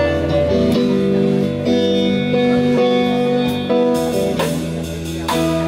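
Live rock trio: electric guitar playing held chords over a steady bass line, the chords changing about once a second. Drum and cymbal hits come in strongly about four seconds in.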